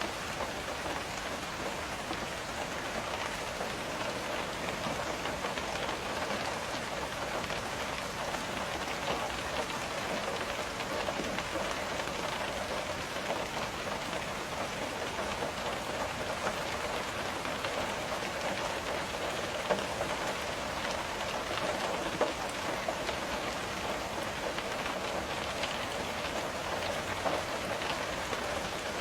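Steady rain pattering on a window, a dense even patter of drops with a few slightly louder taps here and there.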